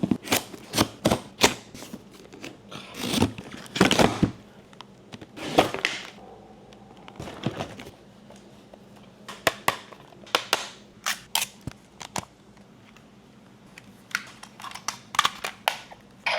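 Handling of packaging and costume pieces being unboxed: a string of sharp clicks and knocks with a few short bursts of rustling.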